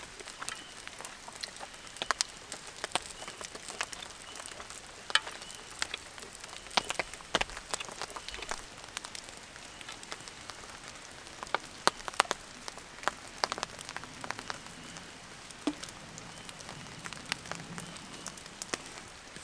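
Steady rain: an even hiss with scattered sharp taps of drops landing close by.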